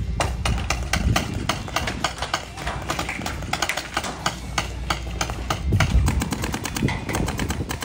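Paintball markers firing in rapid, irregular strings of sharp pops, several shots a second, over a low rumble.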